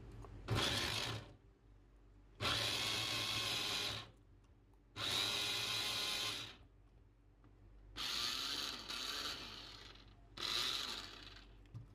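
Tornado 1.5-litre vegetable chopper's electric motor run in five short pulses of one to two seconds each, spinning its blades to chop onion. It is the test of whether the blade keeps turning under load after repair.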